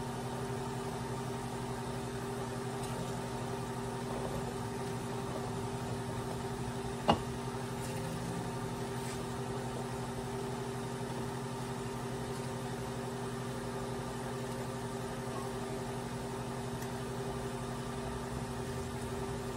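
Steady electrical hum of a kitchen appliance, with a single sharp knock about seven seconds in.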